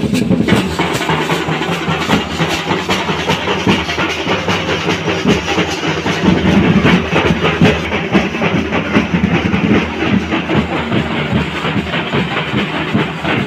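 A group of chenda drums played together in a fast, dense rhythm: a continuous stream of rapid strokes with no break.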